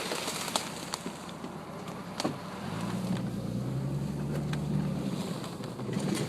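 Truck driving through brush: a steady rushing noise with a few sharp snaps and clicks. Its engine hum grows louder for about two seconds near the middle.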